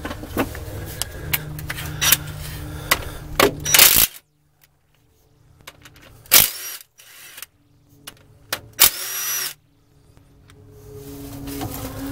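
Cordless power driver spinning in short bursts to back out a timing-chain tensioner bolt on a Ford 5.4L Triton V8, with sharp metal clicks. A steady low hum and clicks fill the first third, then cut off suddenly. Two brief driver runs follow, the second with a whine that rises as the motor spins up.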